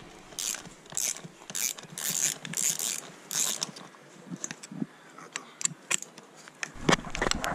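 Ratchet wrench clicking as a bolt is tightened down firmly, about six quick strokes roughly half a second apart, then fainter clicks and a sharper knock near the end. These are the freshly threadlocked starter-clutch bolts of a small four-stroke dirt bike engine being torqued.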